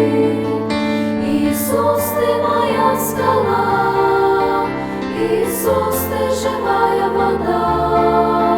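A Christian song: voices singing a melody over steady instrumental accompaniment.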